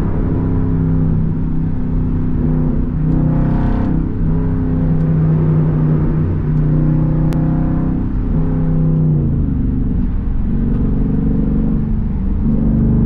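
Straight-piped SRT Jeep V8 droning loudly at highway cruise, heard from inside the cabin. The exhaust note steps and bends in pitch a few times as the throttle and gears change, with a swell a few seconds in, a drop about eight seconds in and a rise near the end.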